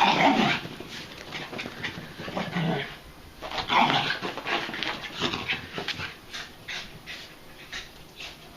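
Dogs panting hard while playing, with a few louder scuffling, grunting bursts and then a run of quick, rhythmic pants near the end.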